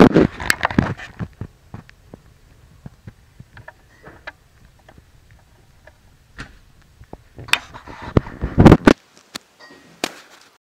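Irregular clattering knocks and clicks, loudest in two dense bursts at the start and about eight seconds in, with scattered lighter ticks in between.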